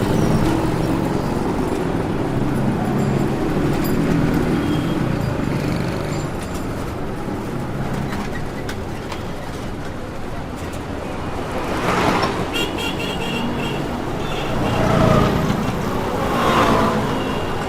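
Roadside city traffic: a steady rumble of engines with vehicles passing close by, each pass swelling and fading with tyre hiss, the clearest about twelve seconds in and twice more near the end. A short run of high chirps sounds just after the first clear pass.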